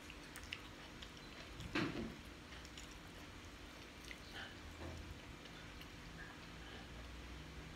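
A person chewing food with soft, scattered mouth clicks, and one louder mouth noise about two seconds in.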